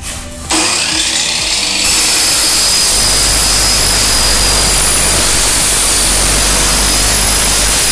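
An electric compound miter saw starts about half a second in and cuts through an aluminium window-frame profile: a loud, steady high whine from the motor and the blade in the metal.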